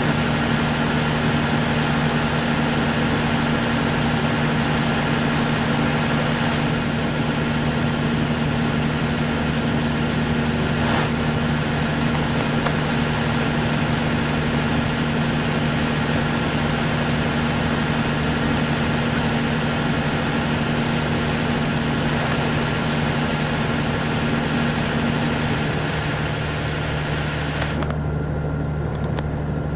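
MCI D4000 commuter coach's Detroit Diesel Series 60 engine idling steadily. Late on, one of its steady tones drops out, and a hissing layer above it cuts off suddenly a couple of seconds later.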